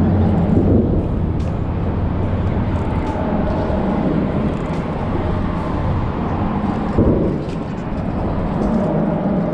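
Traffic rumbling steadily across the road bridge overhead, with a single sharp thump about seven seconds in.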